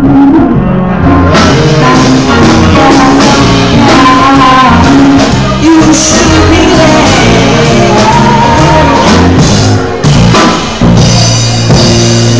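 Live band playing with a saxophone and voices, recorded very loud on a cell phone.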